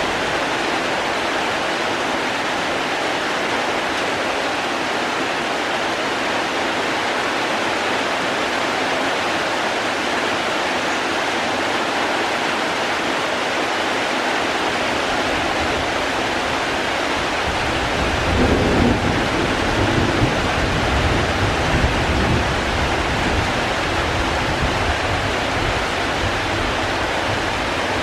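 Steady hiss of heavy rain falling. About two thirds of the way through, a low rumble joins it, loudest for a few seconds before easing off.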